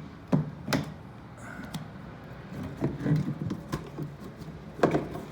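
Handling noises from a tub and its lid: a series of irregular knocks and clicks, with the loudest knock near the end.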